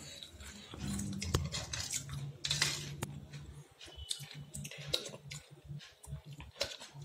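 Chewing, with a metal spoon clinking and scraping in a ceramic bowl of tamarind water in scattered short clicks. A faint low hum runs underneath from about a second in.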